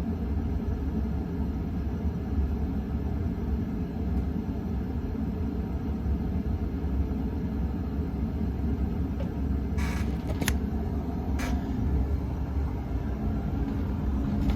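KDK Royalaire 52-inch ceiling fan running on high speed: a steady low rumble of the motor and the air moving off the blades. A few sharp clicks come about ten to eleven seconds in.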